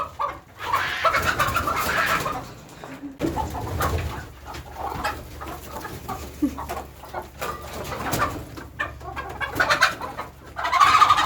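Chickens clucking and squawking in irregular loud bursts as they are chased, the loudest flurry about a second in and another at the end.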